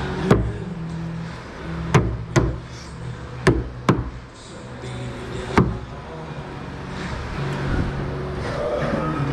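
Sharp knocks on wooden tongue-and-groove ceiling boards as they are fitted into place, six in all, some in quick pairs, over low background music.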